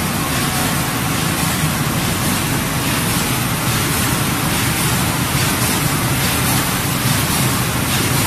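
Automatic paper carton window patching machine running: a steady, even mechanical noise from its feeder belts and rollers.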